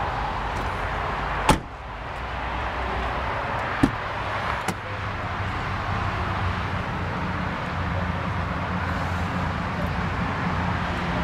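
Steady background rumble with three sharp clicks from handling an open car door, the loudest about one and a half seconds in and two smaller ones near four and five seconds.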